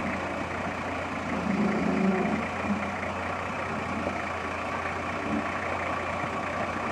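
A four-wheel drive's engine running steadily at low revs as it creeps down a steep track, with a constant low hum and a brief swell in loudness about two seconds in.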